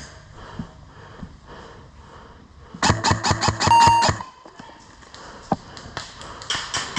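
Airsoft gun firing a rapid full-auto burst, about ten shots a second for a second and a half, about three seconds in. Fainter scattered knocks of movement surround it.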